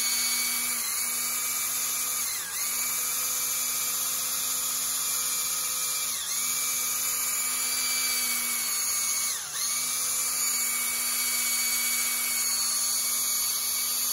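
Small cordless polisher spinning a soft foam pad over car paint for a final polish with fine polish: a steady motor whine that briefly dips in pitch about four times.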